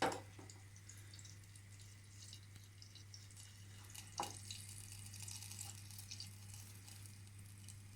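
Butter melting in a pot on the stove, with faint, scattered fine crackling and sizzling, over a steady low hum. A light knock comes about four seconds in.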